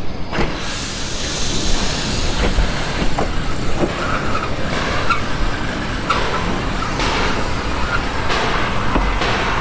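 Coffee Pot steam railcar (Steam Motor Coach No.1) rolling slowly past with its coach: steady running noise with irregular clanks from the wheels on the rail joints, and a few short squeaks from about four seconds in.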